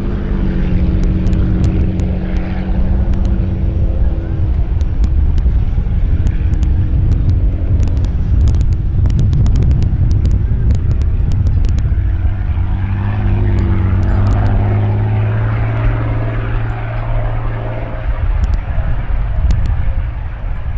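Classic unlimited hydroplane Miss Wahoo's engine running with a deep, steady rumble, settling onto a firm, even note about twelve seconds in.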